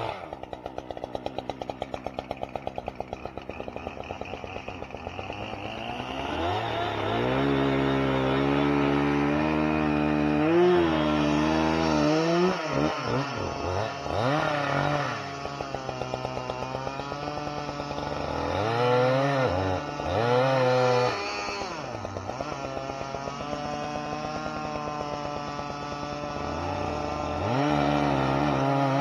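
Two-stroke chainsaw idling with a fast, even pulse for the first few seconds, then revved up again and again, its pitch climbing and dropping as it is worked.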